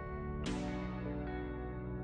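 Instrumental background music: sustained chords, with a new chord struck about half a second in.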